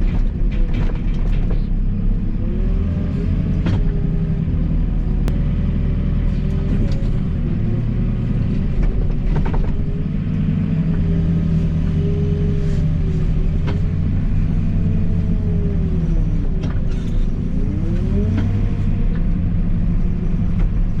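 Diesel engine of a farm loader running under working load, its revs rising and falling, with scattered knocks and clanks from the machine.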